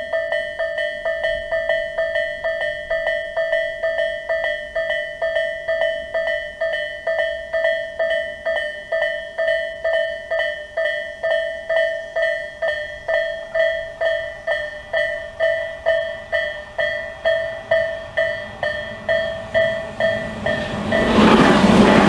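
Japanese level-crossing warning bell of the Tobu 'sound A' type, ringing in a steady repeating electronic ding about two strikes a second. About 21 seconds in, a Tobu 100 series Spacia limited express arrives and passes loudly, its running noise rising over the bell.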